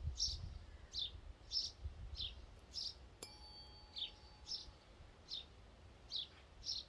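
A bird repeats short, high, falling chirps about every half-second to second. About three seconds in, the OM tuning fork is struck once and rings with a few clear pure tones for about a second and a half.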